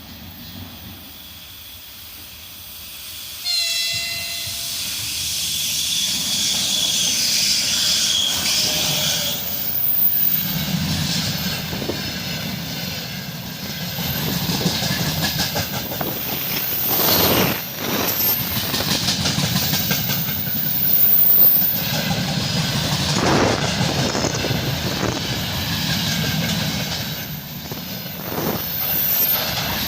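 A train passing, with a steady rumble and rattle. A horn-like tone sounds briefly about three and a half seconds in.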